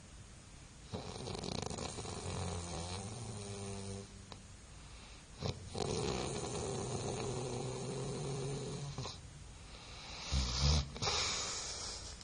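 A person snoring: three long, rasping snores a few seconds apart with quieter breathing between them. The last snore, near the end, is the loudest and deepest.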